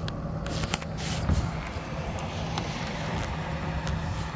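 Steady low hum of a car engine idling, with scattered clicks and rustles from hands and the camera handling the hoses around the engine, the loudest about a second in.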